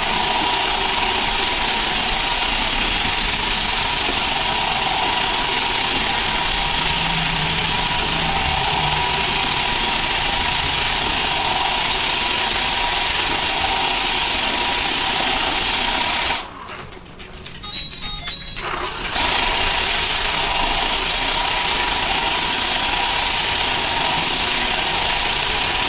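Roomba robot vacuum running with a steady mechanical hum and a constant tone. The sound drops away abruptly for about two and a half seconds, about two-thirds of the way through, then comes back.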